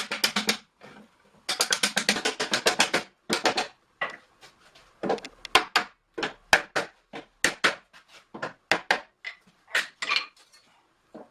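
Hammer blows on a hoop driver, knocking a steel hoop down over the oak staves of a barrel to tighten it. A quick run of many blows comes early on, then slower, separate strikes about half a second apart.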